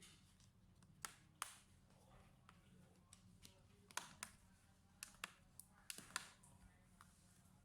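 Faint, irregular sharp clicks and taps, about a dozen, from small parts and tools being handled while working inside a laptop.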